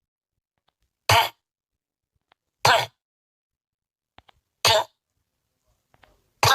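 A person coughing: four single short coughs, each spaced about one and a half to two seconds apart.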